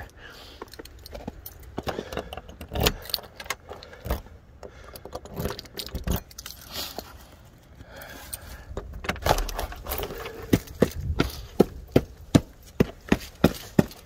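Keys jangling with a run of sharp metallic clicks and knocks as a front door with a brass deadbolt and knob is unlocked and opened; the clicks come louder and faster in the last few seconds.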